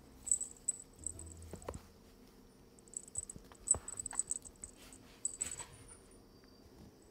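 Soft scuffling of a dog and kitten wrestling in play: scattered light taps, rustles and quick scratchy sounds, coming in little clusters.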